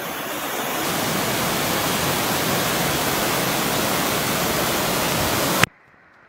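Steady rushing noise of a heavy downpour and floodwater torrenting down a street, which cuts off suddenly about five and a half seconds in.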